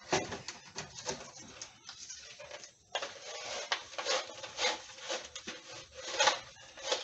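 A fish tape being pulled out and wound back into its plastic reel: the tape scrapes and rattles in a run of uneven strokes, broken by a short pause just before the halfway point.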